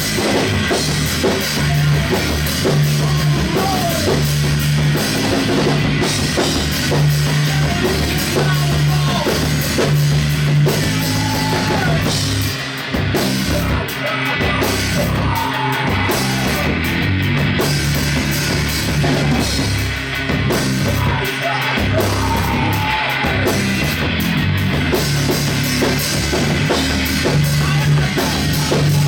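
Rock band playing live, with heavy distorted guitars, a pulsing bass line and a drum kit.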